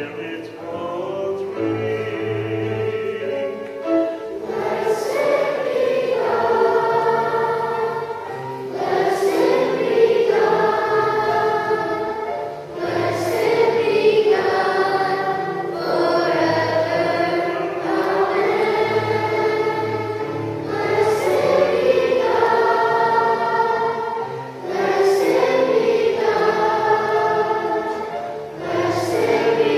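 Choir singing an offertory hymn, in sung phrases of about four seconds with short breaks between them.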